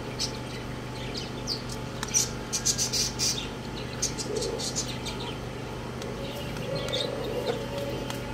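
Young roosters pecking grain from a steel bowl: a quick run of sharp beak taps about two seconds in, with a few scattered pecks and chirps, and a low drawn-out call from a rooster later on.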